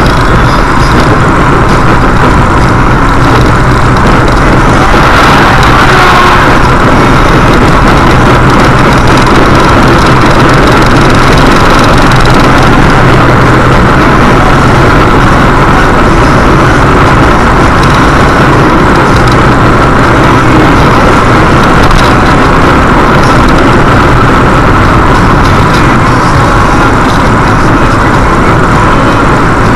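Steady road and engine noise of a car driving at highway speed, heard from inside the cabin and recorded very loud.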